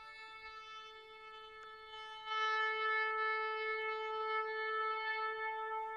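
One long, steady horn note at a single pitch, held for several seconds and getting louder about two seconds in.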